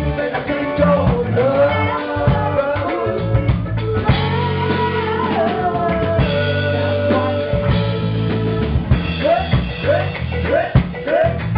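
Live band music: several voices singing into microphones over a drum kit. A long note is held through the middle, and short repeated arcing notes come about twice a second near the end.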